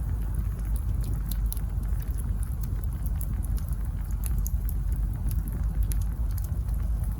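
Wood campfire burning, a steady low rumble with scattered small crackles and pops from the burning logs.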